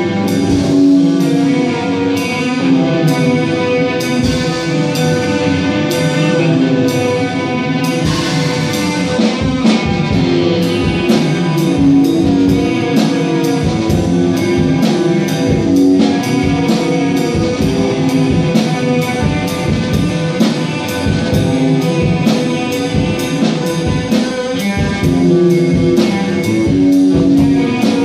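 Electric guitar and drum kit playing a rock song together, with the guitar holding chords over a steady cymbal beat. About eight to ten seconds in the drums fill out with a low kick and the cymbal beat quickens.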